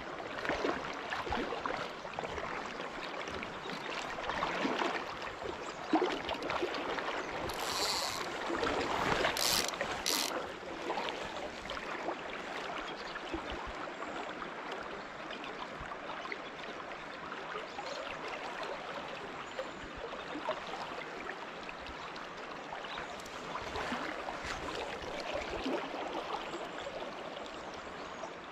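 Steady rush and gurgle of river current flowing around a wading angler. There are a few brief sharper sounds between about eight and ten seconds in.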